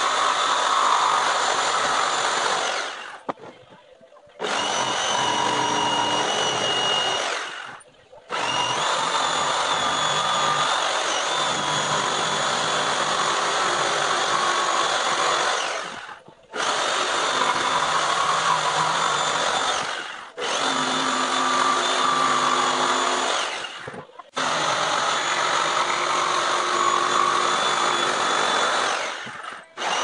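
A power tool running in about six runs of three to eight seconds each, each one winding down before it starts up again.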